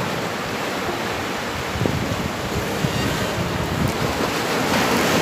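Sea surf washing over shoreline rocks, a steady rushing noise, with wind buffeting the microphone.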